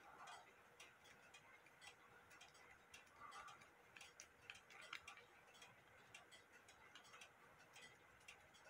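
Faint, quick, uneven ticking from a bare WUBA Warmink clock movement's escapement as its time train is driven by hand.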